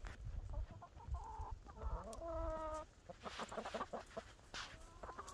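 Backyard chickens clucking: a short call about a second in, a longer drawn-out call around two seconds in, then a quick run of short clucks.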